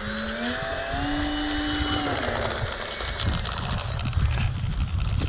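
Electric ducted fan of an E-flite Habu 70mm RC jet spinning up with a whine over a rushing hiss. The pitch steps up and holds, then eases off about two seconds in as the jet starts to taxi, with a low rumble in the second half.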